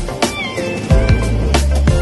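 Background music: an electronic track with a regular beat, deep bass notes and short high synth notes that slide down in pitch.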